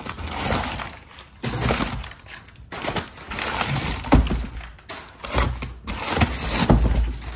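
Packing material from an exhaust kit box crackling and rustling in several bursts as it is handled, with a few dull thumps.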